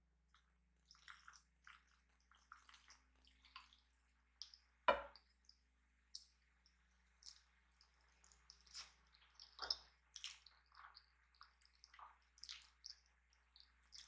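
Close-up eating sounds: faint wet chewing and slurping of instant ramen noodles, with small squishes and light clicks scattered throughout and a sharper sound about five seconds in.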